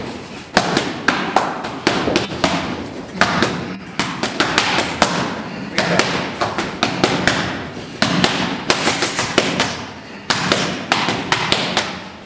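Boxing gloves smacking focus mitts: sharp slaps in rapid combinations of several punches, with short pauses between combinations.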